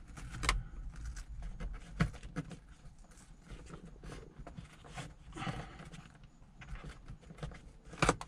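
Hand-handling sounds of a dash cam power cable being pushed into the edge of a car's headliner: scattered clicks and knocks of plastic trim and cable, with sharper knocks about two seconds in and near the end.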